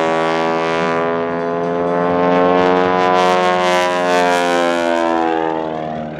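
Aerobatic biplane's piston engine and propeller running hard through a diving manoeuvre, the engine note falling and then rising again as power and distance change, and dropping in level near the end as it passes low.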